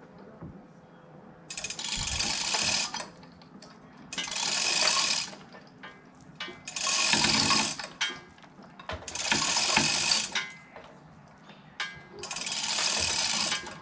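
Manual chain hoist hanging from an A-frame gantry, its hand chain pulled to lift the front of a car body: five bursts of chain rattling through the hoist with ratchet clicking, each about a second long, spaced a couple of seconds apart.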